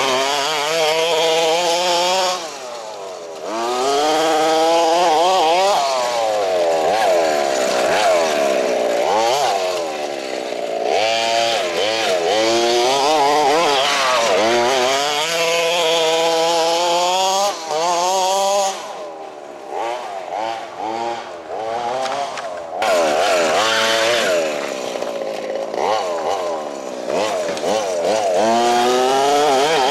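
Small two-stroke nitro engine of a radio-controlled monster truck, repeatedly revving up and easing off in a high buzzing note. It drops back briefly a few seconds in, and again for a few seconds past the middle.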